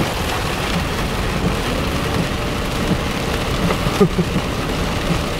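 Heavy rain beating on a car, heard from inside: a steady, dense rush, with one short knock about four seconds in.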